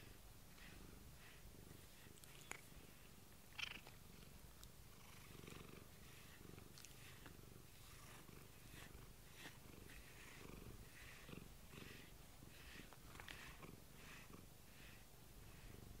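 House cat purring softly in a steady rhythm while being brushed around the chin and cheeks with a pet brush. Two short clicks come a few seconds in.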